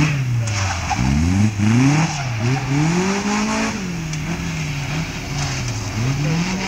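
Westfield sports car's engine revving hard and easing off again and again as it is driven through a tight cone course, its pitch climbing and dropping several times, with one longer climb about three seconds in.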